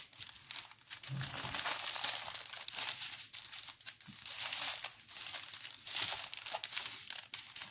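Small plastic bags of diamond-painting drills crinkling as they are handled and gathered up, an irregular crackly rustle in fits and starts with short pauses.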